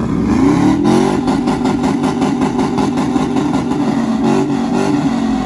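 A truck engine revving as it drives past, its pitch rising over the first second and then held high with a fast, even pulsing from the exhaust.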